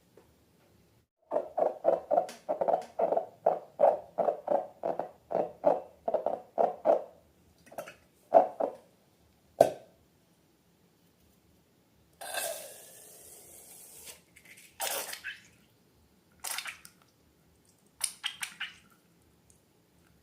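Slime being squeezed and worked by hand, with a run of quick wet squelches at about four a second, then scattered squishes, a short hiss about twelve seconds in, and a few crackly squishes near the end.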